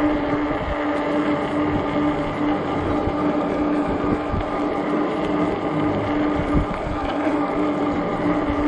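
Ecotric 48V fat-tire e-bike riding at speed: a steady, unchanging whine under heavy wind buffeting on the microphone.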